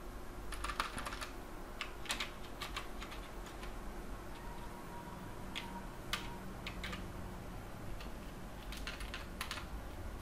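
Computer keyboard typing: short clusters of keystrokes with pauses between them.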